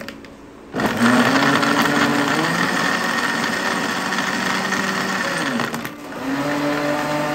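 Electric blender's motor running, blending mango pieces, ice cubes, ice cream and milk into a milkshake. It starts about a second in, runs steadily, dips briefly near the end and starts again.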